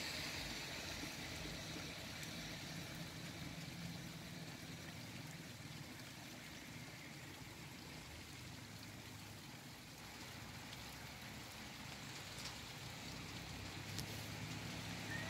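Heavy rain falling: a steady, faint hiss, with a low hum underneath and a couple of faint ticks near the end.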